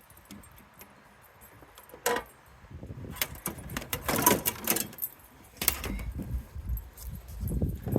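Metal parts of a soda vending machine clanking and rattling as it is taken apart for scrap: a sharp knock about two seconds in, a few seconds of jangling metal, then another hit and a lower rumbling clatter.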